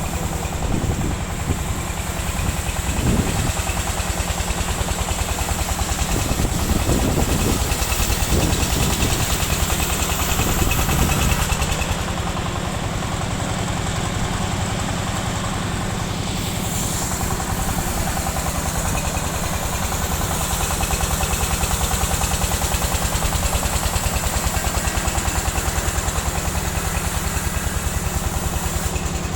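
Sawmill machinery running steadily: a low engine rumble with a rapid, even pulse that holds through, easing slightly about halfway.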